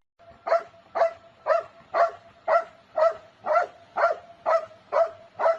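A dog barking in a steady rhythm, about two short barks a second.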